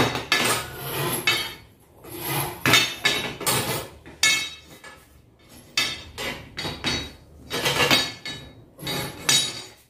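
Steel tubes of a drum seeder's handle frame clanking and rattling against each other and the concrete floor as the sections are worked together in their plastic joint clamps: an irregular series of metallic knocks with a short lull about halfway.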